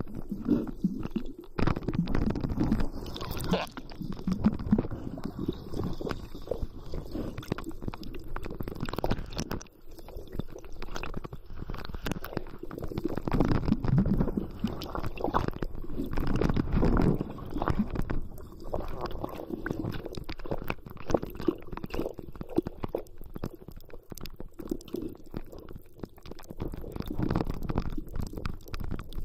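Muffled underwater noise picked up by a camera held underwater by a swimming spearfisher. It is an uneven low rumble of water moving against the camera and the diver's movements, with scattered small clicks.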